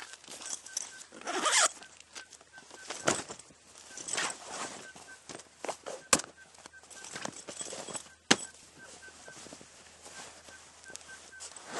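Heavy canvas swag being opened and spread out on the ground: rustling and flapping canvas, with a few sharp clicks. A louder harsh noise comes about a second and a half in.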